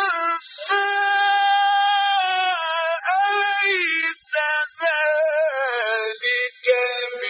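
A male reciter's solo voice chanting the Quran in a slow, melodic style, holding long ornamented notes. He breaks off briefly about four seconds in and again just after six seconds.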